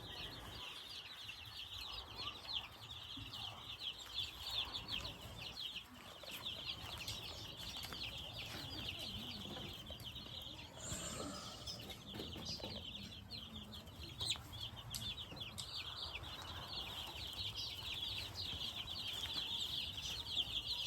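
A coop full of young chicks peeping constantly, many short high cheeps overlapping into one unbroken chorus.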